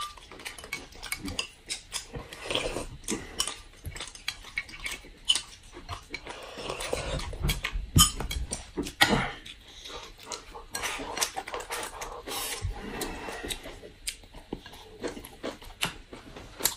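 Two people eating: chewing and mouth sounds, with chopsticks clicking and tapping against plates and bowls many times at irregular moments.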